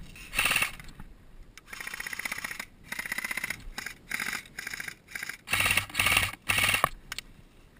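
Airsoft electric guns firing on full auto in a series of short bursts, about nine in all, each a fast rattle of shots; the loudest bursts come near the end.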